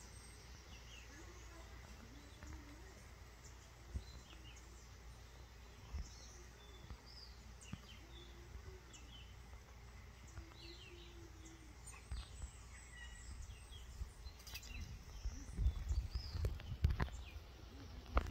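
Outdoor ambience: faint, scattered bird chirps over a steady low rumble, with a run of louder low thumps near the end.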